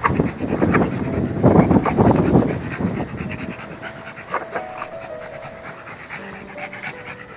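A Bichon Frise panting rapidly as he noses a ball along the ground. The panting is loudest in the first three seconds and fades down after that.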